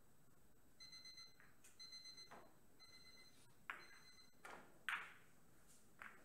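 Billiard cue tip striking the cue ball with a sharp click just before 5 s in, then the ball-on-ball click of the cue ball meeting another ball just after 6 s. Before the shot, an electronic ringtone-like beeping sounds in four short bursts about a second apart.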